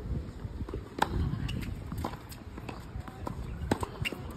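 Tennis racket striking the ball on a serve about a second in, followed by several more sharp ball hits and bounces on a hard court.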